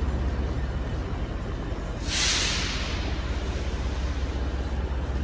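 Steady low hum of a standing passenger train, with a sudden hiss of compressed air released from its pneumatic brake system about two seconds in, fading within a second.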